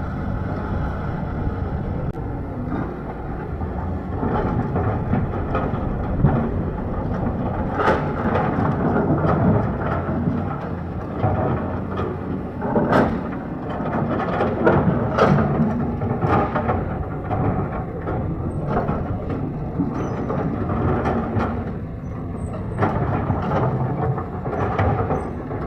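Diesel engine of a JCB 3DX backhoe loader running steadily under working load, with a run of sharp clanks and knocks from the digging and loading work, thickest in the middle and again near the end.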